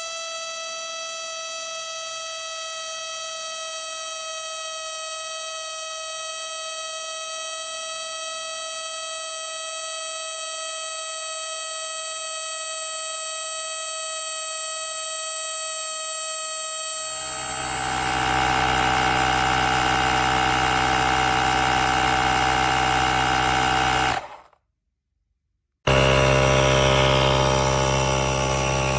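Portable electric air compressor running with a steady, high-pitched buzzing whine. About 17 seconds in it turns louder and deeper. Around 24 seconds it cuts out completely for about a second and a half, then resumes.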